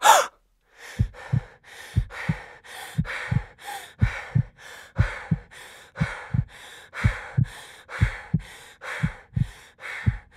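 A person panting hard, quick heavy breaths about twice a second, each with a short low thump, from fright after a sudden scare. A loud burst right at the start.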